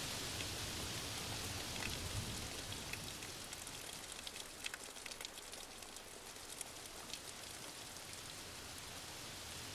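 Steady rain with many sharp individual drops pattering close by, most distinct in the middle of the stretch. The low rumble of a thunderstorm fades out near the start.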